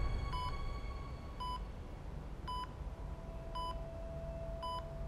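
Short electronic beep repeating about once a second, five times, a single clear tone over a faint low hum, as a music tail fades out at the start.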